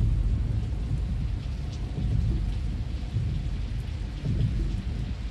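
Steady rain falling, over a low rumble of thunder that swells and fades.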